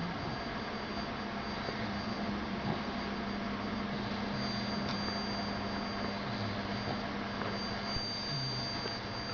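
A sleeping dog snoring: a few short, low snoring breaths a couple of seconds apart, over a steady hum and hiss.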